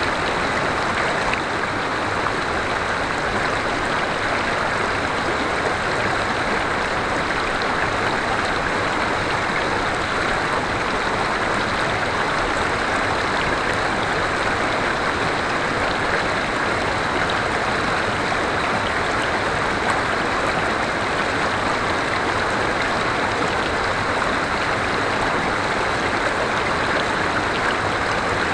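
River water flowing over rocks in a steady, unbroken rush.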